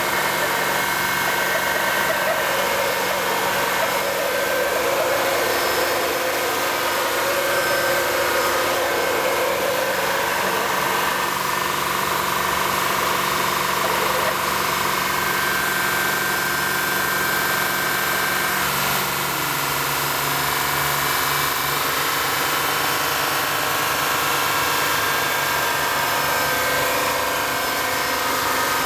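Honda Elysion Prestige engine held at a fast idle around 2,900 rpm, running steadily with a high, constant whine over it. The owner takes this for an abnormal noise from the automatic transmission. About two-thirds of the way through, the engine note steps down slightly.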